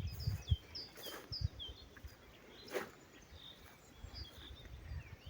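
A songbird singing a run of short, falling chirps, about three a second, that stops a little under two seconds in, with a few more notes near the end. Low rumbling bursts sit underneath.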